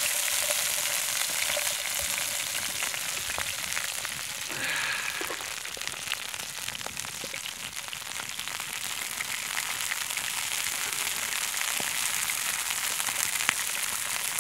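Silkworm pupae frying in hot vegetable oil in a pan over a campfire: a steady sizzle with scattered crackling pops as the liquid-filled pupae spit in the oil.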